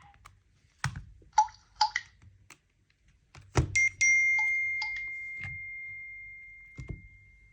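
A few dull knocks and short high beeps, then a single clear high ringing tone that fades away slowly over about four seconds.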